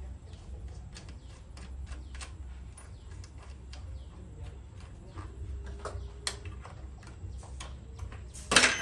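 Scattered light clicks and taps of metal parts as a miter saw's head and fittings are handled and adjusted by hand, with one louder, short clatter about eight and a half seconds in.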